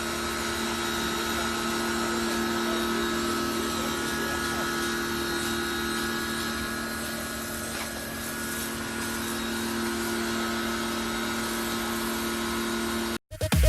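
PAXCESS 1800-watt electric pressure washer running, its motor and pump humming steadily over a hiss of spraying water. The sound cuts off suddenly near the end.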